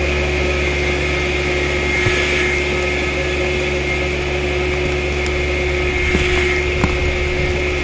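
Off-screen machine running steadily with a hum as it pulls a cable that slowly tips a tree's root ball out of the ground. There are a few faint cracks in the second half.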